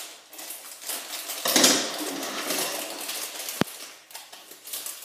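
Blind-pack wrappers crinkling and rustling as they are cut and torn open by hand and with scissors, loudest about a second and a half in, with one sharp click a little past halfway.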